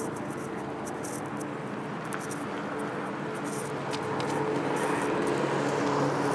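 Street traffic: a car driving past, its engine and tyres growing louder in the second half.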